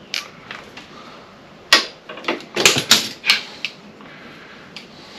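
Sharp clicks and clacks of hand tools and small parts being handled. There are a few single knocks, then a quick cluster of them about two to four seconds in.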